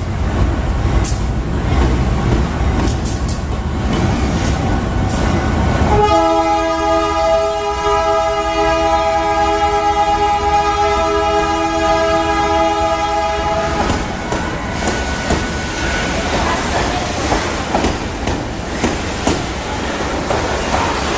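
Diesel freight train rumbling loudly past, then a multi-tone locomotive air horn sounding one long chord for about eight seconds, starting about six seconds in. After the horn stops, the wheels clatter and knock over the rails.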